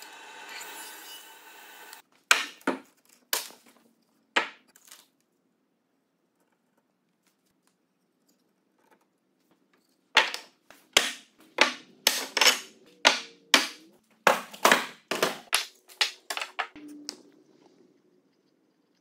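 Sharp wooden knocks and clacks as solid hardwood table legs and tenoned rails are handled and knocked together in a dry fit: a few knocks, a long pause, then a run of about two knocks a second that thins out near the end. A steady noise runs for the first two seconds and cuts off.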